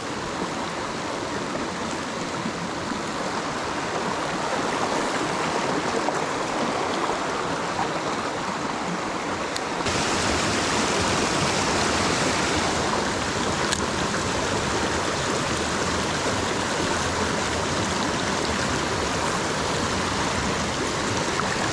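Mountain stream water rushing steadily over rocks, turning suddenly louder and brighter about halfway through.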